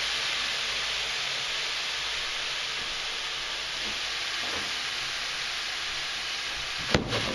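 Chanterelles, diced onion and butter sizzling steadily in a very hot pan, an even hiss that eases slightly over time. A single sharp knock comes near the end.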